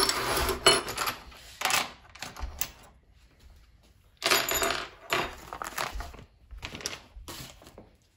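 Small metal kit parts and a hose clamp clinking and clattering, with plastic parts bags rustling as they are handled, in irregular short bursts with a brief pause about three seconds in.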